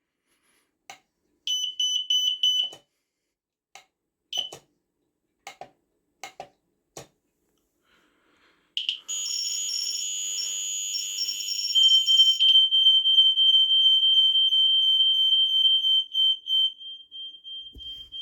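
Smoke alarm sounding on test: its high-pitched piezo tone comes in a short burst, then a few brief chirps and clicks. About nine seconds in a harsher, noisier alarm sound starts. From about twelve seconds a loud, continuous high-pitched tone with a fast flutter sounds, then fades off near the end.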